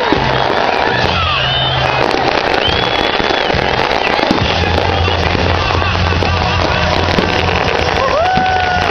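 New Year's fireworks going off with continuous crackling and popping, over music with a heavy bass line from a stage sound system that grows stronger about four seconds in, and scattered voices from the crowd.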